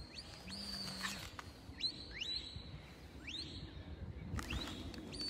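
Handler's shepherd's whistle commands directing a sheepdog working sheep. Faint, high whistles: long held notes and two pairs of short rising notes.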